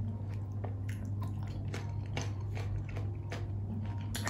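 Close-up mouth sounds of chewing a mouthful of raw shrimp and garlic: irregular wet clicks and smacks over a steady low hum, with one sharper click near the end.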